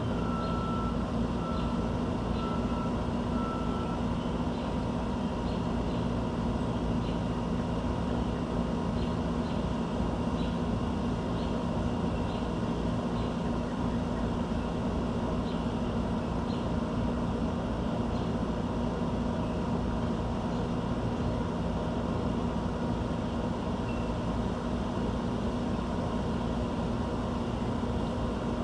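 Steady low mechanical drone with a constant hum, typical of urban background noise. Faint short high chirps repeat about once a second through the first half, and four short even beeps sound at the start.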